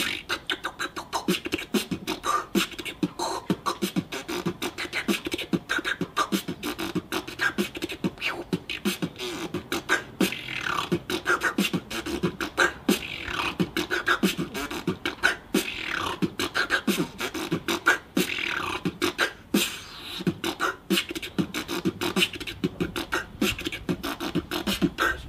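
A man beatboxing: a fast, continuous stream of mouth clicks and percussive hits mixed with short voiced glides and hums.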